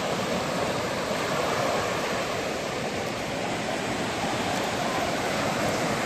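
Small sea waves breaking and washing up a sandy beach: a steady rush of surf.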